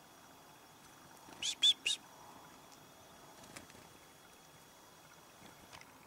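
A chickadee calling: three quick, high, sharp notes about a second and a half in.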